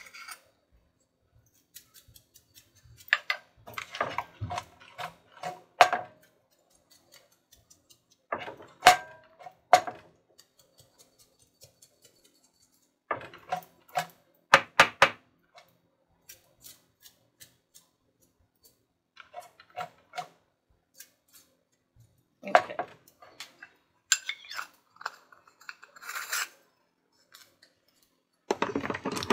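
Cut sweet potato fries clattering as they are tossed in an air fryer basket to coat them with oil and salt, in about five short bursts with pauses between.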